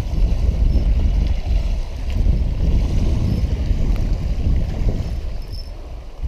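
Wind buffeting the microphone: a loud low rumble that swells and eases in gusts.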